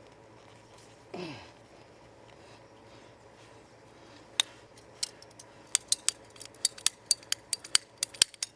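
A run of sharp clicks and snips that come faster and faster over about four seconds, from hand tools working on drip irrigation tubing and fittings. A short sound that falls in pitch comes about a second in.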